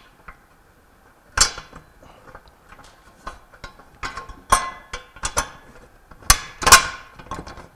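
Irregular metal clicks and clinks as a bolt with its flat washers, lock washer and nut is fitted by hand through a steel coupler guard and pump frame, with a few sharper clanks that ring briefly near the end.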